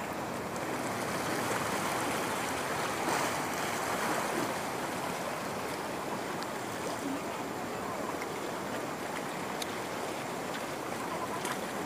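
Water washing against large boulders at a river mouth: a steady rush of surf that swells a little a few seconds in.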